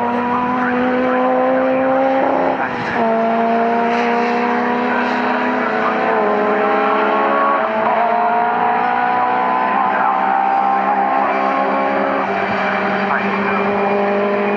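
Racing car engines at full throttle, the pitch climbing steadily and then dropping sharply at each gear change, about two and a half, six and twelve seconds in.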